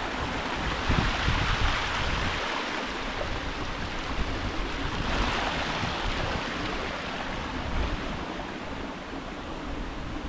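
Creek water rushing steadily over rock, with a low rumble of wind on the microphone.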